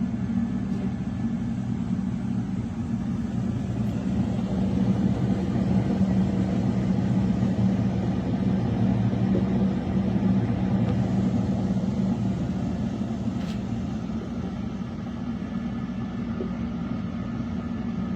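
Countertop air fryer oven running, its fan and motor giving a steady low hum with an airy hiss over it.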